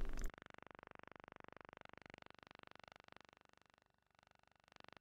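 Near silence: faint room tone after the last word of narration.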